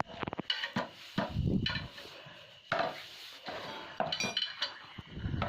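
Metal parts and hand tools clinking and knocking together in an irregular series of sharp, short metallic hits during engine assembly work.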